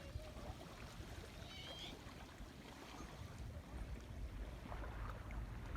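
Wind rumbling on the microphone over a faint, steady wash of water at the shore.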